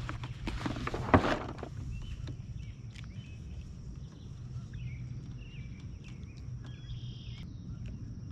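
A burst of handling noise with one sharp knock about a second in. Then a steady high insect drone with small chirping calls over it.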